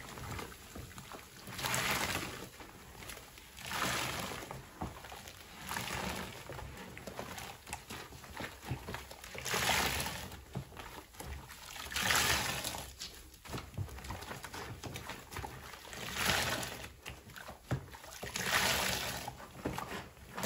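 Soapy foam sponges squeezed by hand in a basin of sudsy water: wet squelching, with water and suds pouring back into the basin in repeated surges every couple of seconds.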